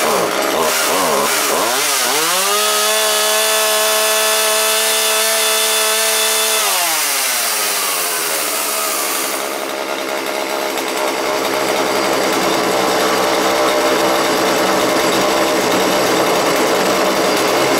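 Husqvarna 141 two-stroke chainsaw running: revved up and down a few times, held at full throttle for about four seconds, then dropping back to a steady idle. It idles after its idle speed screw has been backed off until the chain stops spinning at idle.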